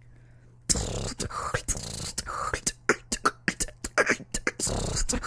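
Female beatboxer performing a rhythm of sharp mouth-made percussive hits mixed with longer held noisy sounds, starting about three-quarters of a second in.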